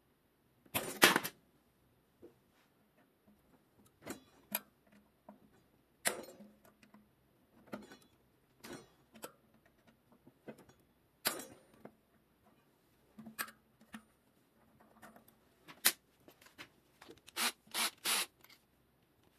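Scattered metallic clicks, taps and clatters of a small hand key and rotor bolts as the bolts holding a bicycle disc brake rotor to the hub are worked loose. The loudest clatter comes about a second in, with a quick run of louder clicks near the end.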